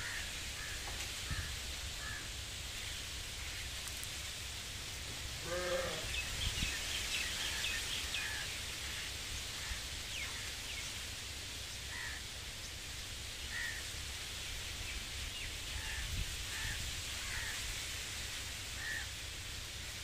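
Wind through a tree's leaves, a steady rustling hiss with low rumbling buffeting of the microphone. Birds chirp briefly at scattered moments, most thickly about six to eight seconds in, and one short pitched animal call sounds about six seconds in.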